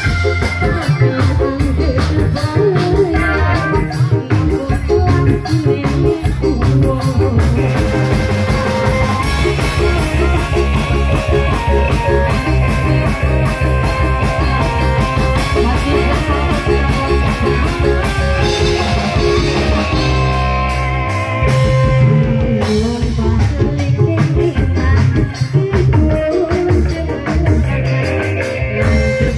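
Live dangdut-style music from a reog troupe: drums with a steady beat and a woman's amplified singing over a sound system. The low beat drops out briefly about two-thirds of the way through, then comes back.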